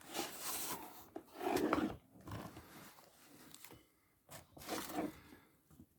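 Packaging rustling and crinkling as it is handled during unboxing, in several short bursts that die away near the end.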